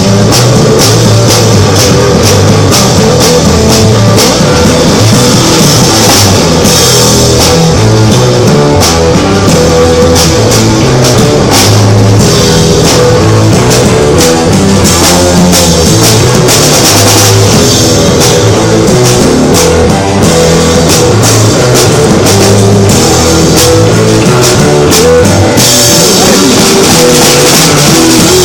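Rock music with a drum kit and guitar, played and recorded very loud.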